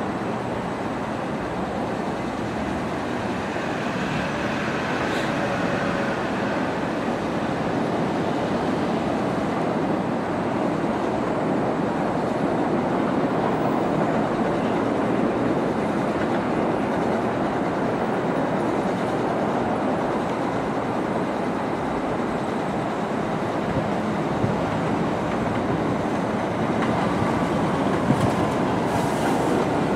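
Bombardier R62A subway train coming around a curve on elevated track and pulling into the station. The steel wheels rumble and clatter steadily on the rails, growing a little louder as the train nears.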